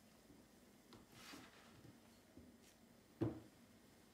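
A knife cutting through a block of cheese on a wooden chopping board: faint scraping and handling noises, then one sharp knock on the board about three seconds in.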